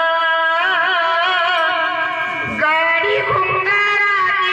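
A man singing a Marathi devotional folk song in a high, woman-like voice, holding long wavering notes over instrumental accompaniment, with low beats joining about halfway through.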